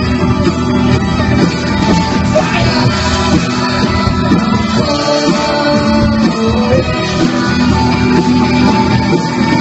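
A rock band playing live: guitar-driven rock music at a steady, loud level throughout.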